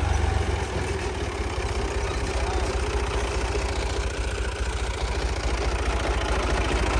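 Fiat (New Holland) 480 tractor's three-cylinder diesel engine running steadily as the tractor drives along towing a disc harrow, a low, even engine sound.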